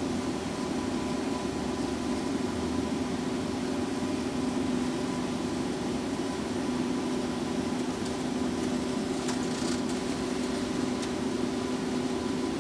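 Lucas 542B-84 CNC horizontal boring mill running with a steady hum, its cross (X) axis traversing.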